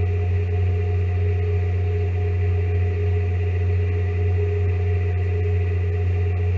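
Steady low drone of a bulk carrier's machinery carried through the ship's structure, with a few fainter steady tones above the hum and no change in speed.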